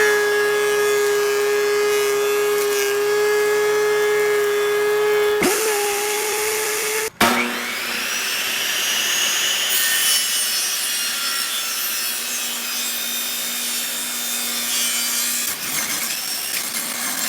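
Electric power tool running at a steady high whine while cutting wood. It breaks off abruptly about seven seconds in, then carries on at a lower pitch with more rasping hiss.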